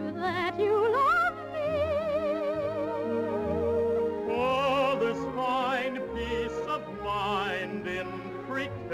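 Operatic singing with wide vibrato over an orchestra: a phrase glides upward about half a second in into a long held note, then higher phrases follow from about four seconds in.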